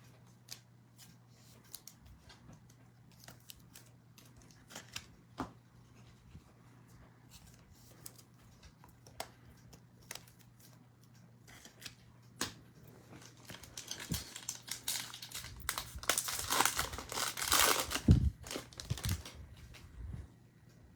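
Trading cards being handled with scattered light clicks, then a foil card pack torn open and crinkled from about halfway through, loudest near the end, with a couple of dull thumps.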